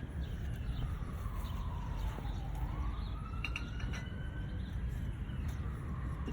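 Emergency vehicle siren wailing, its pitch sliding slowly down and then back up, over a steady low rumble.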